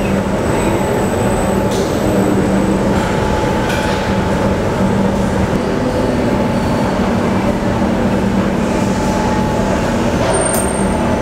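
Steady industrial din of a car-body assembly line: machinery noise with a constant low drone and a few faint clicks.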